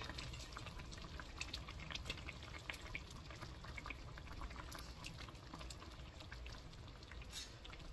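Spiced fish curry simmering in a wok: faint, steady bubbling with many small pops and crackles.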